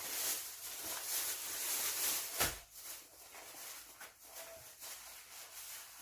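Crackly rustling and handling noise as fish-shaped pastries (bungeoppang) are picked up and counted out, with a single knock about two and a half seconds in, then quieter small clicks.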